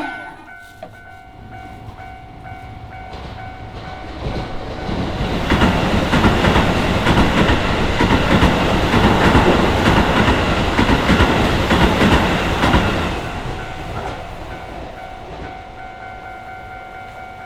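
A Keisei Main Line electric train passes over a level crossing, its wheels clacking over the rail joints. It builds from about four seconds in, is loudest in the middle and fades away. A level-crossing warning bell rings steadily before and after the train.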